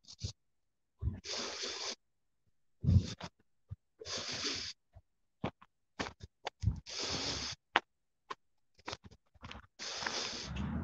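A person breathing heavily close to a phone microphone while walking: a loud breath every second or two, with near-silent gaps between them and scattered short clicks.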